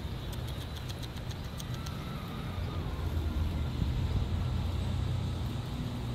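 Steady low engine rumble, like motor traffic, growing a little louder in the second half, with a low hum coming in near the end. Faint light ticks in the first second.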